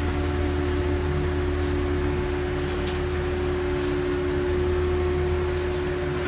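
Bathroom extractor fan running with a steady hum and a constant mid-pitched tone.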